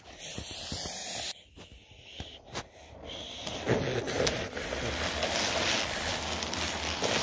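Battery-powered toy train engine running along plastic track and pulling its cars close past, a steady whirr with many small clicks of wheels on the track. It is faint and patchy at first, then loud and steady from about three and a half seconds in.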